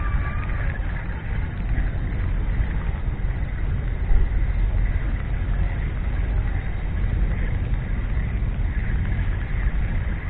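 Steady low rumbling noise with no clear pitch.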